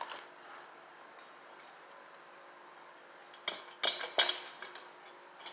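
Metal engine parts clinking and clattering as they are handled on a workbench: a quiet stretch, then a handful of sharp metallic clinks from about three and a half seconds in.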